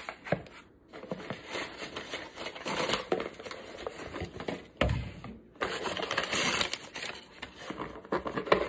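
Cardboard shipping box being pulled and torn open by hand, with cardboard and packaging rustling and scraping, and a thump about five seconds in.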